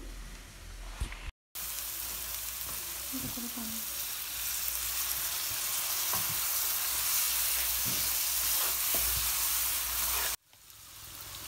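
Spiced onion masala for beef curry sizzling in a nonstick frying pan with a little water added, being braised and stirred with a wooden spatula, with a few light scrapes. The sizzle starts suddenly a little over a second in and cuts off near the end.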